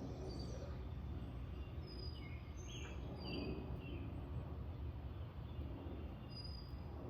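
Birds chirping, short high calls repeated every second or so, over a steady low background hum.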